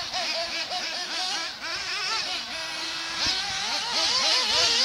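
Nitro-powered 1/8-scale RC buggies, a Losi and a Kyosho Inferno MP9, their small glow-fuel two-stroke engines whining as they are driven around the track. The pitch rises and falls quickly as the throttle is blipped, and the engines overlap. The whine gets a little louder about four seconds in.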